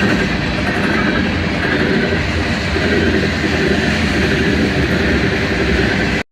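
Train rolling past close by: a loud, steady rumble of wheels on rail, cutting off abruptly near the end.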